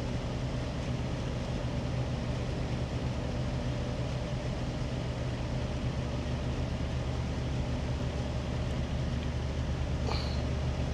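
Steady low rumble of idling truck engines, even and unchanging, with a brief faint high chirp about ten seconds in.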